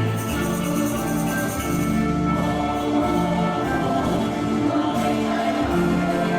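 Choral hymn with orchestral accompaniment: sustained chords with singing, and a rapid high shimmer during the first couple of seconds.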